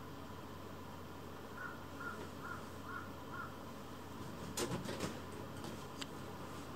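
A faint run of five short, evenly spaced calls, then, about four and a half seconds in, a brief burst of rustling and clicks as kittens scramble on a fleece blanket on a lap.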